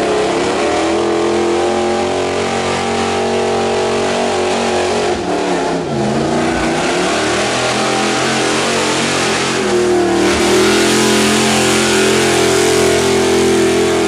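Pickup truck engine running at high revs under load as it pulls a weight-transfer sled. Its pitch dips briefly about six seconds in, then it revs higher and louder from about ten seconds in.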